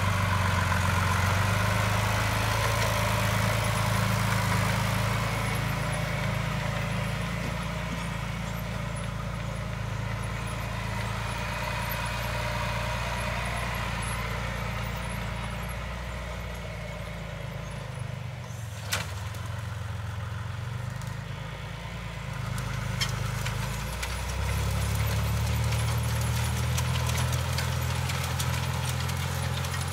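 Farm tractor's diesel engine running steadily. Its note softens and drops a little past halfway, with one sharp click, then comes back up louder.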